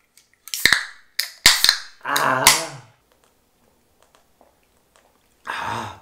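Beer cans cracked open by their pull tabs: a run of sharp pops, each with a brief fizzing hiss, in the first two seconds. A short vocal sound follows, and another comes near the end.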